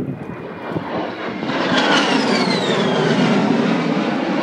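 Jet aircraft flying past overhead. Its engine noise swells about a second and a half in, with a high whine falling in pitch as it goes by.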